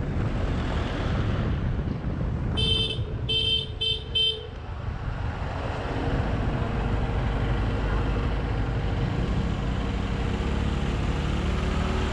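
A scooter's engine and road noise run low and steady as it rolls slowly through traffic. About three seconds in, a vehicle horn gives four short beeps in quick succession.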